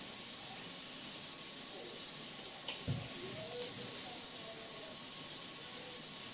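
Small 4-inch paint roller rolling wet paint onto a wall: a steady, sticky crackling hiss, with a light knock about three seconds in.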